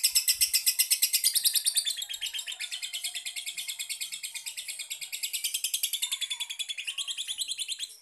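A young Fischer's lovebird giving a long, unbroken ngekek: a fast rattling chatter of high chirps, about ten a second. It is loudest for the first couple of seconds, goes on a little softer, then stops abruptly. A long ngekek like this is what keepers look for as the mark of a promising young bird.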